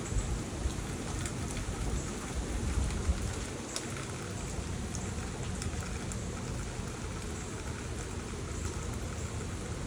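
Rain falling steadily, as a continuous even hiss with a few separate drop ticks.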